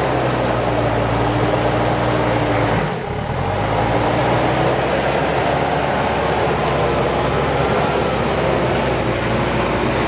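JCB 3DX backhoe loader's diesel engine running steadily under load as the front bucket pushes and levels soil. Its note dips and shifts briefly about three seconds in, then picks up again.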